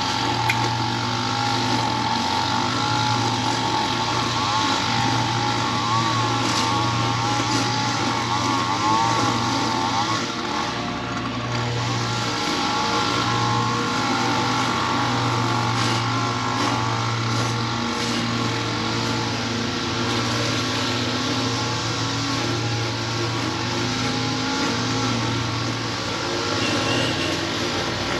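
Lawn mower engine running steadily under load while cutting grass.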